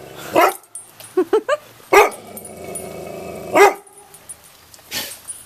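Chocolate Labrador retriever barking: three loud barks about a second and a half apart, with a few softer yips between the first two. She is afraid of roofing materials piled in the driveway and balks at going into the house.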